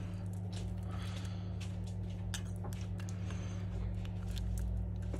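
Faint scattered clicks and light scrapes from fingers and a plastic pry tool handling an opened smartphone while its battery is worked loose, over a steady low electrical hum.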